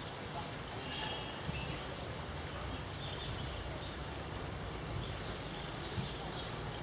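Insects, likely crickets, keep up a steady high-pitched trill over a faint background hiss.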